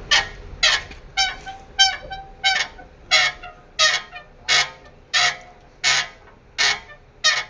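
Old Man Emu BP-51 shock absorber squeaking in a steady rhythm, about three squeaks every two seconds. The squeak is traced to a worn spherical bearing in the shock mount.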